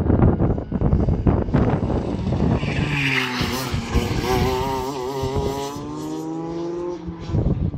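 Rotax 125cc two-stroke kart engine passing close on the track. Its note wavers through the corner, then rises in pitch as the kart accelerates away.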